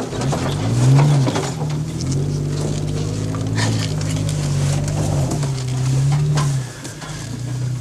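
Toyota FJ Cruiser's V6 engine running, heard from the vehicle. Its pitch rises and falls in the first second or so, then holds a steady drone and eases off near the end, with scattered light knocks.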